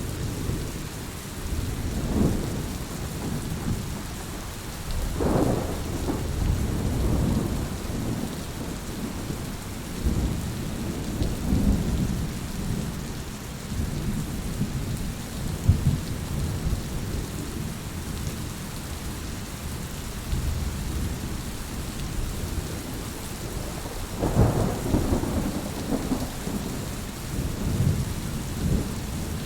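Steady rain hissing, with thunder rumbling low underneath throughout. The rumble swells several times, most strongly about five seconds in and near the end.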